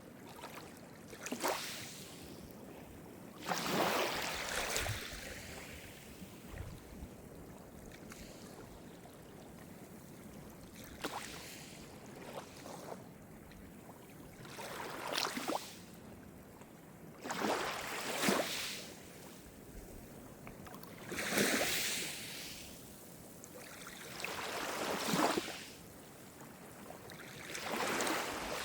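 Small Mediterranean waves breaking and washing up the shore: a rush of surf every three to four seconds, with a quieter hiss of water between them.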